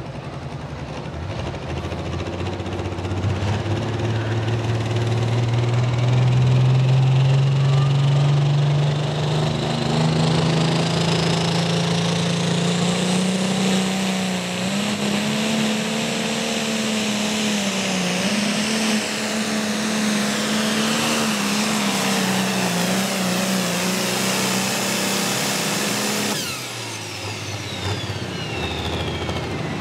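Ford 9600 turbo-diesel pulling tractor under full load on a pull: the engine note climbs steadily for the first dozen seconds or so, then holds with slight wavering, a high turbo whistle rising above it. About 26 seconds in the throttle comes off, the engine note drops and the turbo whine falls away.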